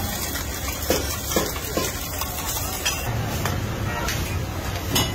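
Eggs and flatbreads frying on a large flat iron griddle, a steady sizzle with a few sharp clicks and scrapes of a metal spatula. About three seconds in, the sizzle gives way to a lower, steadier hum, with a sharp slap near the end.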